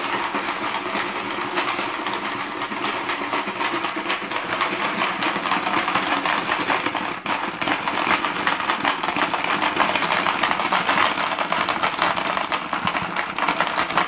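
Hungry Dino plastic marble game played at full speed: several players hammering the dinosaurs' levers at once, a dense continuous clatter of plastic heads snapping and marbles rattling across the board.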